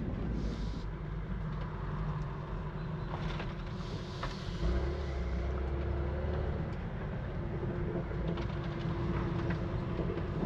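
BMW F80 M3 driving at a steady pace: an even, low engine and road rumble with no revving.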